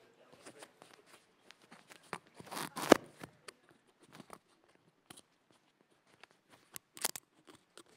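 Handling noise from a speaker's microphone being adjusted: scattered clicks and rustles, with a loud thump about three seconds in and another sharp knock about seven seconds in.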